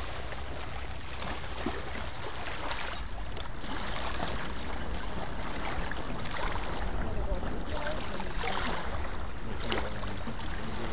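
Small waves lapping and splashing over a pebble lakeshore, with a soft wash every second or two, over a steady low rumble of wind on the microphone.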